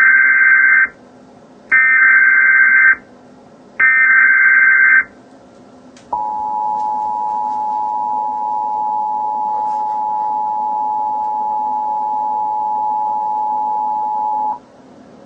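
Emergency Alert System alert opening. Three short bursts of SAME digital header data tones, each about a second long, are followed about six seconds in by the EAS two-tone attention signal. The attention signal is a steady dual tone held for about eight seconds before it cuts off.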